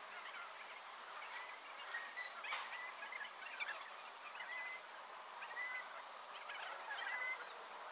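Sped-up scratching of a Lamy fountain pen nib and a Zig waterbrush on sketchbook paper. The fast playback turns the strokes into a run of short, high squeaky chirps over a faint hiss.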